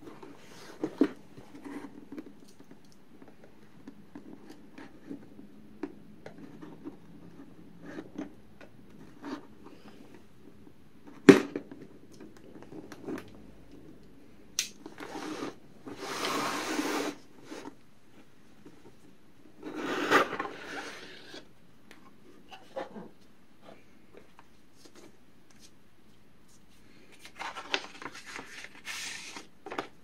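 Hands handling and opening a cardboard mailer box: scattered taps and knocks, with one sharp knock a little over a third of the way in, and several longer stretches of cardboard scraping and rustling. Paper rustles near the end.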